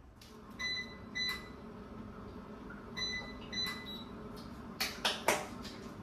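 Four short electronic beeps from a button on the digital brewing gear, in two pairs about half a second apart. They are followed near the end by a few sharp clacks, the loudest sounds here, as something hard is knocked or set down.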